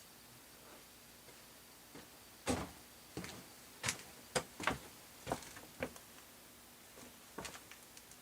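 Irregular sharp clicks and knocks of parts and tools being handled during a jukebox repair, starting about two and a half seconds in and coming in a scattered run of about a dozen.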